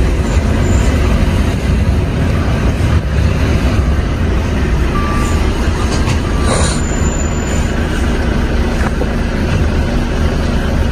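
Volvo truck's diesel engine running as the truck drives slowly, heard inside the cab as a steady low drone. A short hiss sounds about six and a half seconds in.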